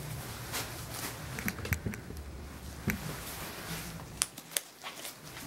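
Scattered faint clicks and rustles as a matted dog is held and handled on a grooming table, over a low steady room hum.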